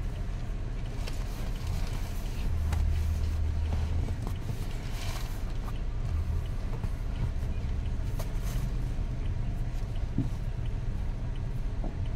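Steady low rumble inside a stationary car's cabin, with small rustles and taps from people shifting on the back seat.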